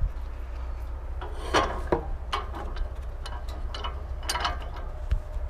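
Irregular wooden knocks, scrapes and metal clicks as a small pine beam is moved by hand and clamped on a sawmill bed, over a steady low hum.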